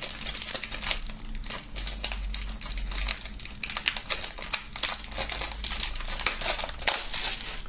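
Plastic shrink-wrap film crinkling as it is peeled and pulled off a CD jewel case: a dense, irregular run of crackles.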